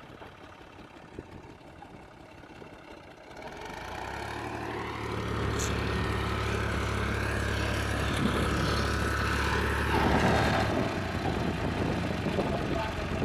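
New Holland 480 tractor's diesel engine, idling low at first, then revving up about four seconds in and running hard at a steady high speed, easing off a little near the end.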